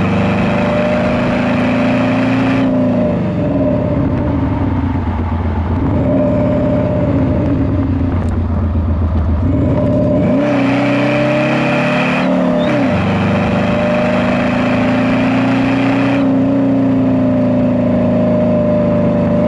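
Car engine heard from inside the cabin, pulling under throttle, then lifting off about three seconds in as the revs fall away. About ten seconds in it pulls again, shifts up a gear a couple of seconds later, and holds a steady cruise.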